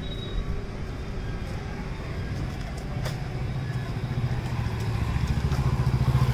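Tractor engine running steadily, driving two belt-driven centrifugal water pumps through a PTO shaft. It grows louder about halfway through.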